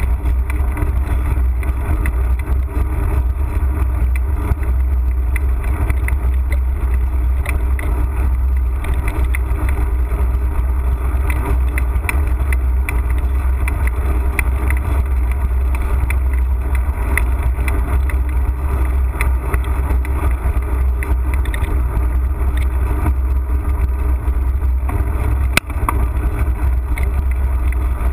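Mountain bike ridden over a wooden boardwalk, heard through a handlebar-mounted action camera: a steady low rumble of wind on the microphone, with light ticking and rattling from the tyres and bike over the planks, and one sharp click near the end.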